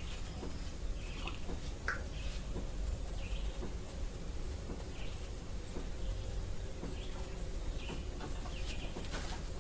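Chickens clucking with short, scattered calls every second or two, over a steady low rumble.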